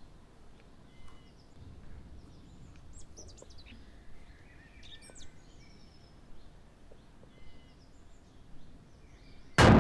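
Small birds chirping now and then, faintly, over a quiet background hum. Near the end, music cuts in suddenly and loudly with a gong-like hit that keeps ringing.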